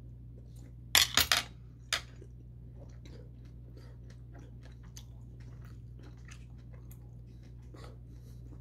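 A man chewing a bite of beef sirloin topped with kiwi, with a few sharp, loud mouth smacks about a second in and one more at two seconds, then soft, wet chewing clicks.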